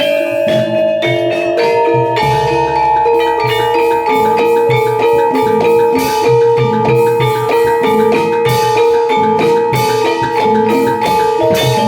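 Javanese gamelan accompaniment for kuda lumping (jaranan): struck bronze metallophones ringing note after note in a steady rhythm over drums, with a few long held tones.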